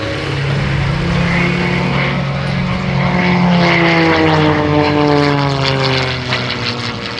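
Edge 540 aerobatic plane's propeller and piston engine running at high power as it passes, its pitch falling through the second half and the sound fading toward the end.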